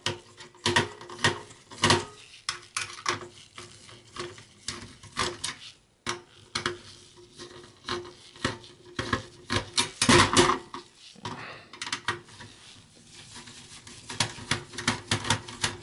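Phillips screwdriver unscrewing the CPU heatsink's retaining screws on a motherboard: scattered small metal clicks and scrapes of the bit in the screw heads, with a louder cluster about ten seconds in.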